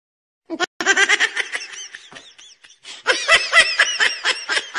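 Half a second of silence, then laughter in rapid short bursts, in two runs with a lull around the middle.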